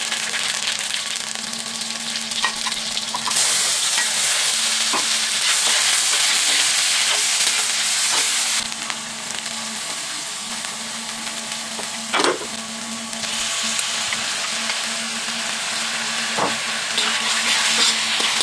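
Spices and sliced onions frying in hot oil in an iron wok, sizzling steadily, with a metal spatula stirring and scraping against the pan now and then. The sizzle grows louder about three seconds in and eases back after about eight.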